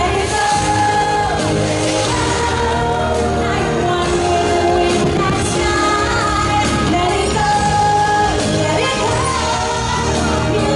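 Fireworks show soundtrack: orchestral pop music with sung vocal lines holding and gliding between notes.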